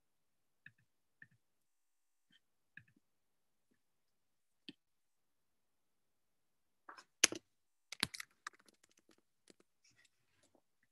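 Computer keyboard and mouse clicks: a few faint scattered clicks, then a burst of quick keystrokes starting about seven seconds in, loudest at the start of the burst.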